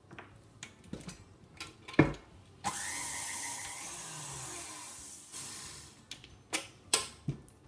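KitchenAid Artisan tilt-head stand mixer: a heavy knock as the head comes down onto the bowl, then the motor and wire whisk run for about two and a half seconds, giving the thick cream-cheese filling a final whisk, and stop. Clicks and knocks follow as the mixer head and glass bowl are handled.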